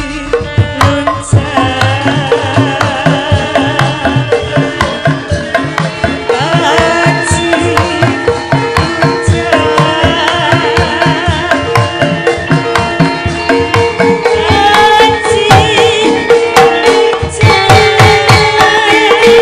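Javanese gamelan playing, the kendhang hand drums beating a fast, steady rhythm under ringing metallophone tones, while a female sinden sings the melody through a microphone.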